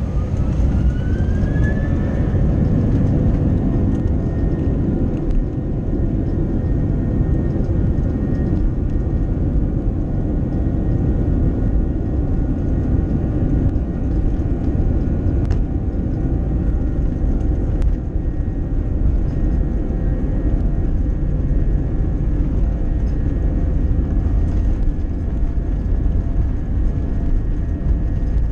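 Airbus A321 jet engines spooling up to takeoff thrust, heard from inside the cabin: a whine rises in pitch over the first two seconds, then holds steady over a loud low rumble as the airliner accelerates down the runway.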